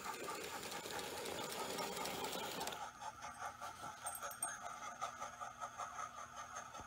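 Mould King Hogwarts Express model locomotive running on plastic toy track: a small electric motor whirring, with a steady hiss at first. About three seconds in the hiss drops, and a rhythmic beat of about three to four a second comes through clearly.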